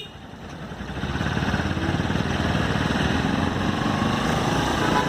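Bajaj Pulsar NS200's single-cylinder engine running. It is quieter at first, then builds up over about a second and holds steady.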